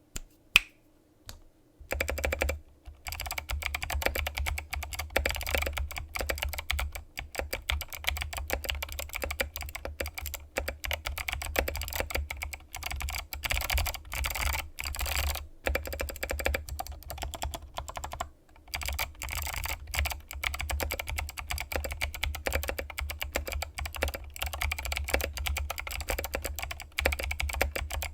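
Rapid, continuous typing on a Bbox60 custom mechanical keyboard with Chosfox Arctic Fox switches and MT3 keycaps: a dense run of deep, bassy keystrokes with a few brief pauses. One sharp click comes about half a second in, and the typing starts about two seconds in.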